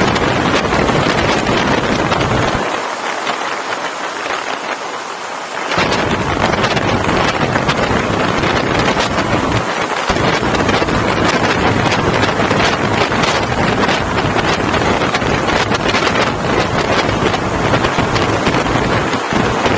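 Wind rushing over the microphone of a camera on a moving motorcycle, with the low rumble of the ride beneath it. The low rumble drops away for about three seconds a few seconds in, then comes back.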